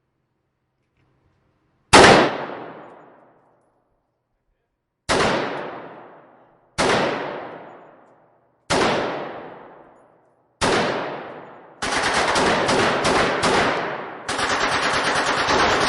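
Gunshots echoing in an indoor shooting range: five single shots a couple of seconds apart, each with a long fading echo, then rapid automatic fire in sustained bursts from about twelve seconds in, with a short break near fourteen seconds.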